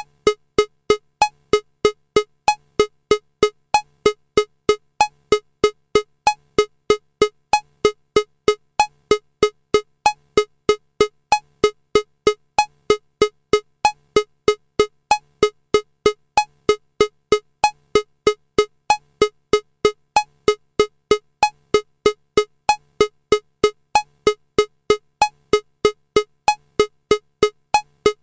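Electronic metronome clicking steadily at 190 beats per minute in 4/4, about three pitched clicks a second, with the first beat of each bar of four accented.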